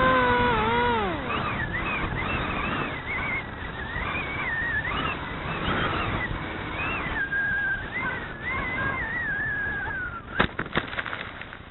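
Model plane's motor whine falls in pitch as the throttle is cut, then air rushes past with a wavering whine as the plane glides down. About ten seconds in, a sharp knock as it hits the grass, followed by a few smaller knocks as it comes to rest.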